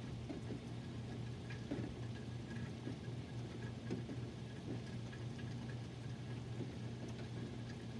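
Rain falling, with scattered drips ticking irregularly, over a steady low hum.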